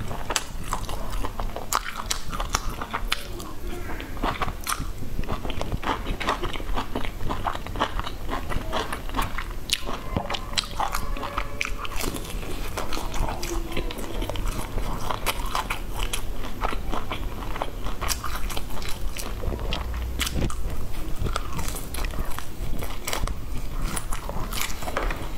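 Close-miked biting and chewing of grilled skewered sausage, heard as a dense run of small mouth clicks throughout.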